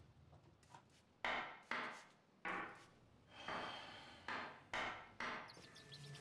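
Rough scrubbing strokes on a hard surface, about seven of them and irregularly spaced, each starting sharply and fading.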